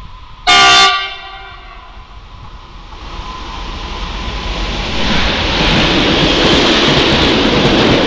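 A PKP Cargo EU43 Bombardier TRAXX electric locomotive gives one short horn blast about half a second in. Its coal-loaded freight train then approaches, and the noise of the locomotive and wagons rolling past close by grows louder and holds steady from about five seconds in.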